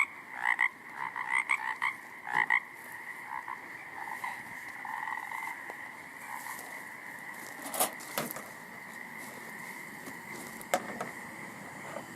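A chorus of frogs calling, with several loud close croaks in the first few seconds, then a steady, fainter chorus. A few short clicks come around the middle and again near the end.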